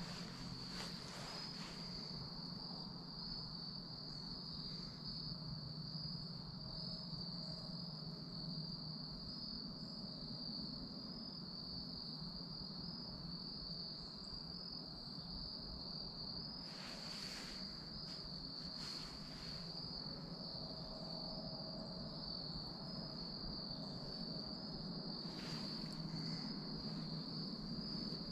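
A steady, high-pitched insect trill runs unbroken over a low background hiss, with a few faint brief rustles now and then.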